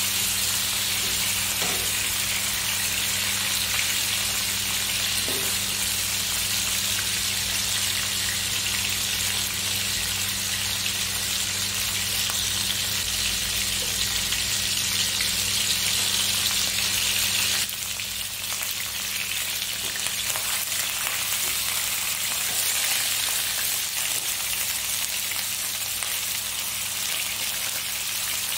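Tilapia pieces shallow-frying in hot oil in a nonstick wok, a steady sizzle. It drops a little in level about two-thirds of the way through.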